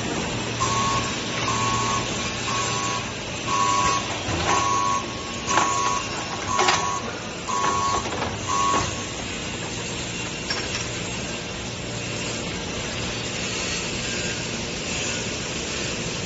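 Stretch film printing machine running with a steady mechanical hum. Over it an electronic beeper sounds about once a second, nine times, and stops about nine seconds in.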